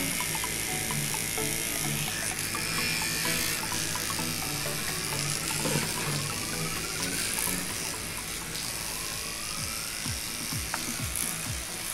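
Battery-operated toothbrush buzzing steadily as it brushes a dog's teeth, over background music.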